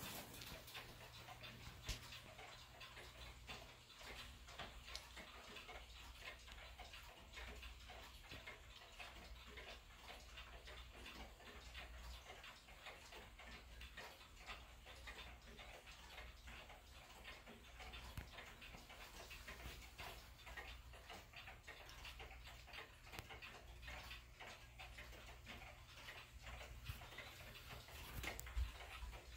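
Faint, steady ticking of pendulum clocks, among them a 1930s Kienzle 'Round Top' grandfather clock.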